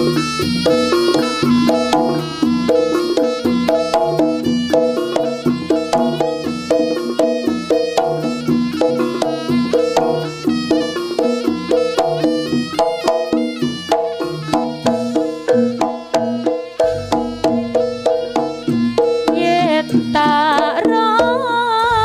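Jaranan (kuda lumping) music: a gamelan-style ensemble of drums and tuned gong-chime percussion playing a fast, steady rhythm. A wavering melody line comes in near the end.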